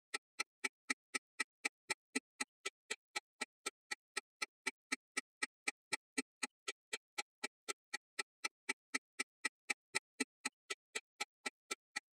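Clock ticking fast and evenly, about four sharp clicks a second with dead silence between them: ticking sped up to match a time-lapse of a quartz wall clock.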